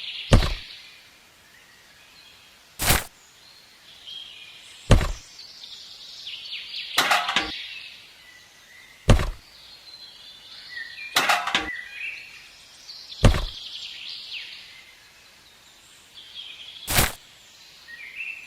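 A series of sharp knocks, roughly one every two seconds and some in quick pairs, with faint high chirping between them.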